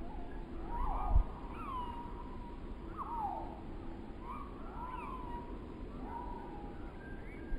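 Wind gusting, with one hard thump of wind on the microphone about a second in. Over it runs a string of short mewing cries that slide down in pitch, about one a second and sometimes overlapping.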